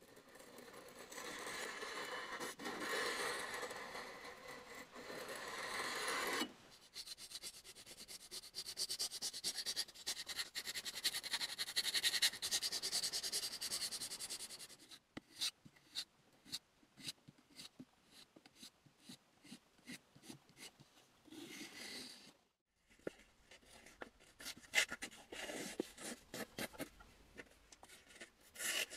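Steel cleaver edge being sharpened by hand, rubbed on abrasive strips in a sharpening jig. There are two long spells of continuous rasping, then a series of short separate strokes as the edge is finished on a strop.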